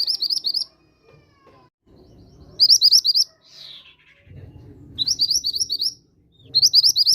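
Mantenan gunung bird song lure recording: short, rapid trills of sharp high chirping notes, each under a second long. The trills repeat four times, about every two seconds.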